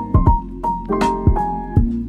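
Background music: keyboard chords over a steady drum beat.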